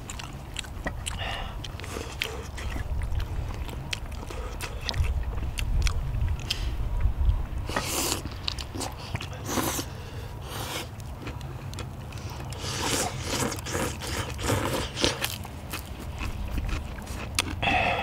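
People eating spicy stir-fried chicken and udon noodles with chopsticks: chewing, several brief noodle slurps and small chopstick clicks and scrapes, over a steady low rumble.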